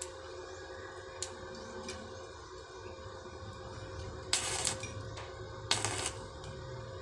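Stick (arc) welder tack-welding a steel angle-bar frame: two short bursts of arc welding about a second and a half apart, each lasting about half a second, over a faint steady hum.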